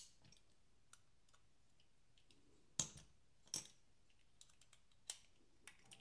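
IQ-L folding knife being worked by hand on freshly installed ceramic pivot bearings: four sharp clicks, at the start, near the middle and about five seconds in, with light ticks of handling in between.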